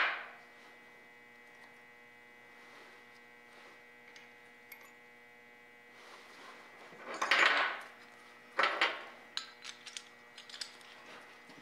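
Metal gears and transmission parts being handled and fitted into a bandsaw gearbox case: a sharp knock at the start, a scraping rattle about seven seconds in, then a clank and a few small clicks. A steady electrical hum runs underneath.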